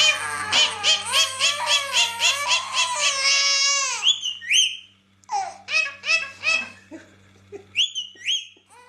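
Parrot vocalising: a quick run of repeated pitched notes for about four seconds, then a few short upward-sliding whistles.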